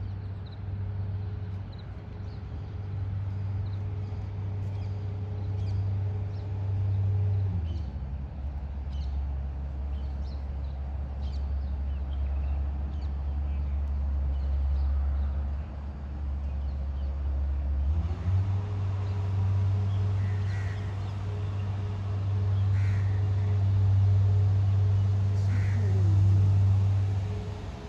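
A loud, low, steady droning hum from an unseen source. Its pitch slides down about seven seconds in and slides back up about eighteen seconds in.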